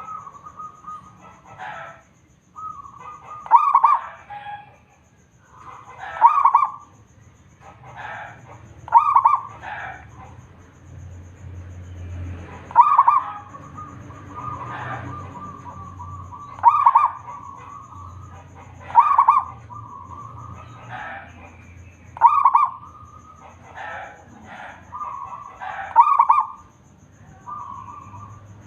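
Zebra dove (perkutut) singing its cooing song over and over, a loud rolling call about every three seconds with softer coos between, over a low steady hum.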